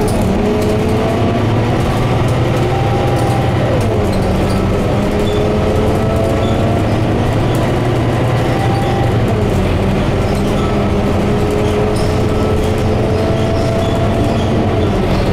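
Scania K230UB single-deck-chassis double-decker bus, its five-cylinder diesel running as it drives along, heard from inside the passenger cabin. Steady engine and road noise, with a whine that rises and falls in pitch as the bus speeds up and eases off, and light ticking rattles from the interior.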